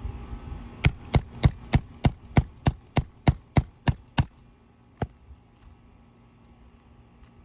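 A roofing hammer striking a steel nail-removal tool about a dozen times in quick, even succession, metal ringing on metal, then once more a second later: driving the tool to pull a nail out from under an asphalt shingle.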